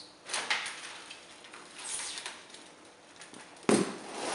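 Handling noise as the two thin aluminum fin halves are fitted onto a copper solar heat pipe: light clicks, scrapes and rustling, then one sharp knock about three and a half seconds in, followed by a brief scrape.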